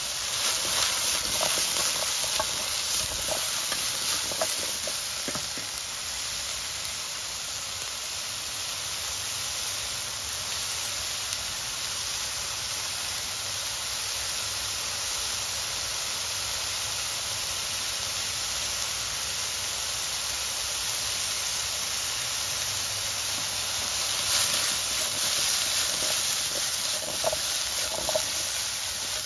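Cut opo squash sizzling steadily in hot oil in a wok over high heat. Near the end the wok is shaken and tossed, giving a louder stretch and a few light clatters as the pieces land back in the pan.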